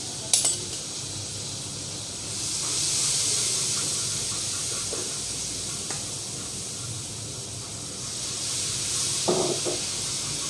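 Oil and ground spices sizzling in a non-stick frying pan while a spatula stirs them, a steady hiss that swells twice. There is a sharp knock about a third of a second in and another near the end.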